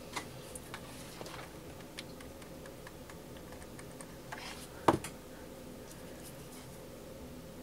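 Small clicks and taps of hands handling ribbon pieces and a hot glue gun on a craft table, with one louder knock about five seconds in as the glue gun is set down. A faint steady hum runs underneath.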